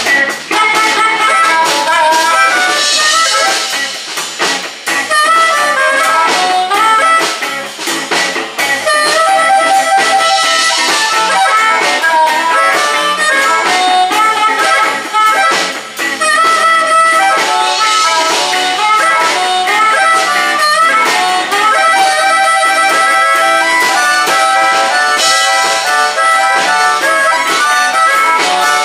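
Blues harmonica solo played cupped into a microphone, bending and sliding notes over a band of electric guitar, bass and drums.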